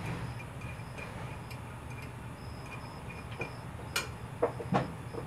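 A few light metal clicks and clinks, bunched near the end, as a camshaft and its sprocket are handled and fitted into a GY6 150cc engine's cylinder head.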